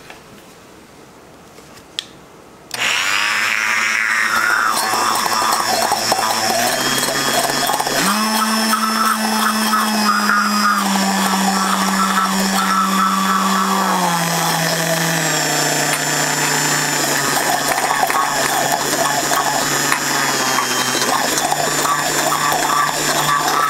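Immersion (stick) blender starts about three seconds in and runs steadily in a stainless steel bowl, blending a vinaigrette. Its motor hum steps up in pitch a few seconds later, then drops back lower in steps.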